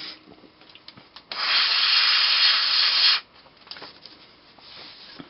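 A person blowing hard into a breathalyzer's MQ3 alcohol sensor: one long, loud rush of breath about two seconds long, starting about a second in, with faint handling clicks around it.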